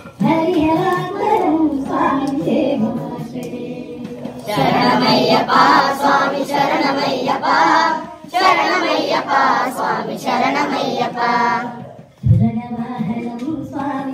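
Group of Ayyappa devotees singing a bhajan in chorus, a leading voice alternating with louder, fuller responses from the group about four seconds in and again about eight seconds in, before a single voice takes it up near the end.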